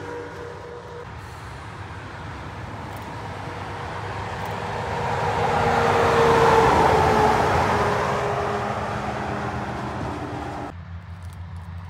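A heavy truck passing at highway speed: engine and tyre noise build to their loudest about six seconds in, with a tone that drops in pitch as it goes by, then fade. Near the end the sound changes abruptly to a low pulsing engine rumble.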